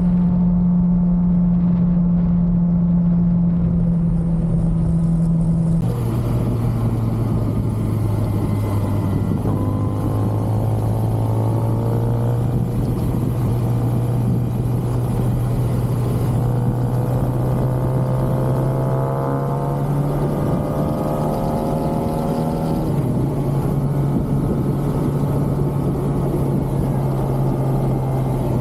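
Stock Kawasaki ZX-6R inline-four engine under way on the road. Its note drops sharply about six seconds in with an upshift, then climbs slowly as the bike pulls, with another small drop near the end.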